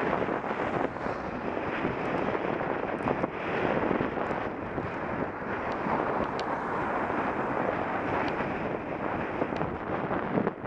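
Wind buffeting the microphone of a camera riding on a bicycle, mixed with the road noise of motor traffic going by; a steady rushing that swells and dips.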